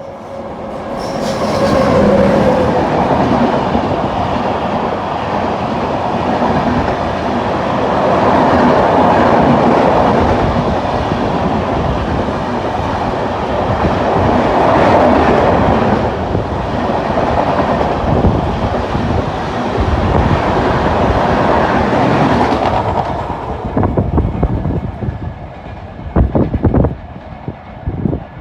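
Express passenger train passing close by at high speed: a loud rush of wheels and air with rapid clatter over the rail joints. It builds over the first couple of seconds, holds for about twenty seconds, then dies away, with a few separate clacks near the end.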